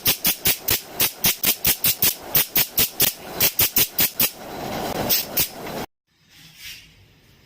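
Background music with a fast, even shaker rhythm of about five hissy beats a second, cutting off suddenly about six seconds in.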